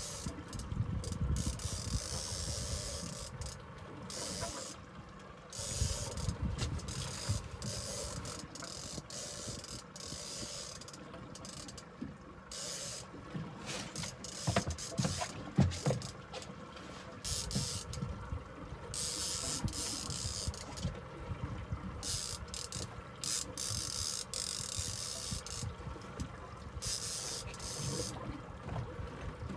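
A fishing reel being cranked in bursts, a ratcheting whir that starts and stops every few seconds, over a hiss of wind and water.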